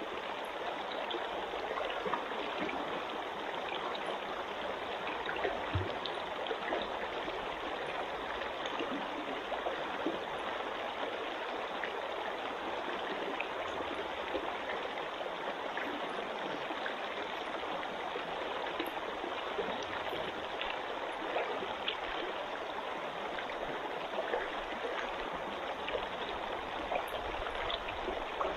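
Water of a mountain trout stream running steadily.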